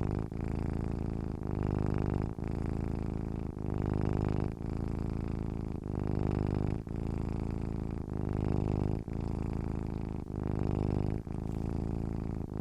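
Cat purring steadily, the low buzz breaking briefly about once a second as it switches between breathing in and out.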